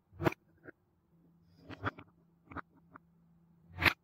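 Painted wooden balls clacking against a wooden spoon, wooden cups and each other in a wooden bowl as they are scooped and moved: about seven sharp wooden knocks, some in quick pairs, the loudest near the end.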